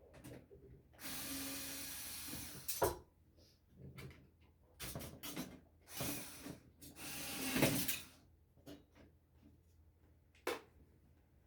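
Parts of an old television being handled and pried apart: two stretches of scraping, one about a second in and one near the middle, with sharp knocks and clicks of plastic and metal pieces between them.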